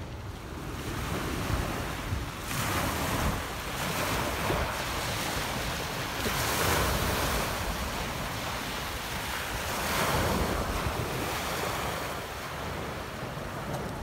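Sea waves washing in on a pebble beach, with three surges a few seconds apart, and wind rumbling on the microphone.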